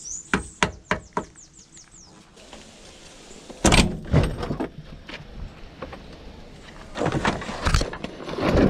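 Headliner and roof trim being pulled down inside an old Mitsubishi Lancer: a few light clicks, then loud cracks and knocks about four seconds in as the lining comes loose, and more knocking and scraping near the end.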